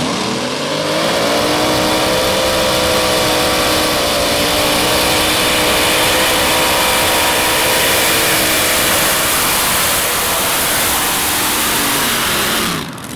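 Modified pulling tractor's twin supercharged engines revving up at the launch and running at full throttle under the load of the weight-transfer sled. The engine note climbs over the first second, holds high and steady, then drops near the end before cutting off suddenly.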